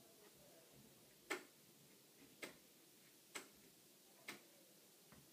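A clock ticking faintly about once a second over near silence; the tick a little over a second in is the loudest.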